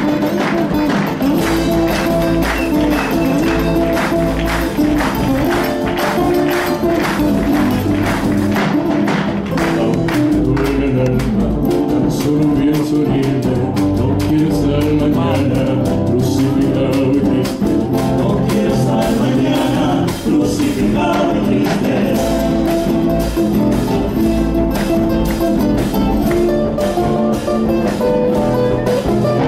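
Live Argentine folk vocal group singing in harmony over strummed acoustic guitars, with a steady beat.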